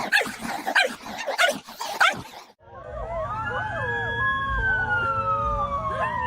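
A dog barking in a quick series. After an abrupt cut, a siren sounds in one long slowly falling tone while a dog howls along in a wavering pitch.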